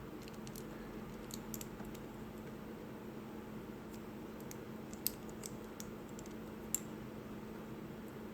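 Small plastic clicks and taps of model kit parts being handled and pressed together, with two sharper clicks a little past the middle, over a faint steady hum.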